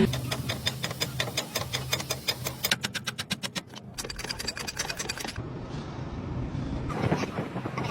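A running machine: rapid, even clicking, several times a second, over a low steady hum. The clicking breaks off a few seconds in, leaving a quieter hum, and picks up again near the end.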